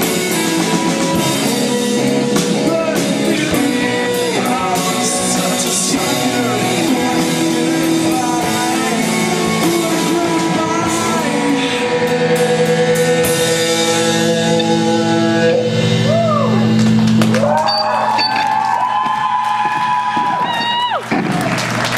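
Live rock band playing with guitar, drums and singing, loud in a large hall. Near the end the band holds a long final note that bends upward and then stops.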